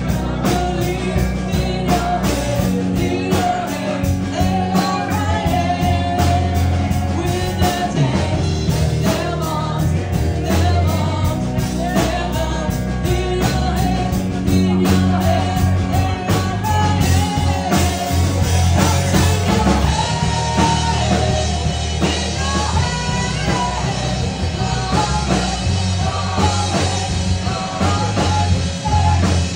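Live rock band: a woman singing into a microphone over electric guitar and a steady beat.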